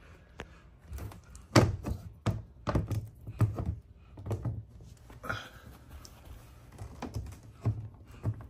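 A string of irregular thunks and knocks from a snake enclosure being handled and its glass front panel closed, the loudest about a second and a half in.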